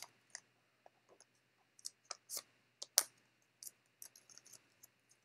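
Sticky-note paper being handled and folded by hand: irregular, crisp little clicks and crackles of paper, the loudest about three seconds in.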